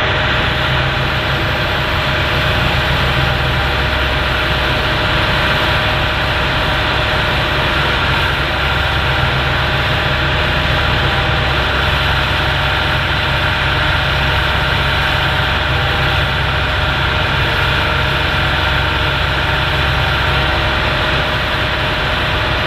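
Hitachi ZX225USR excavator's diesel engine running steadily, with a steady high tone riding over the engine rumble.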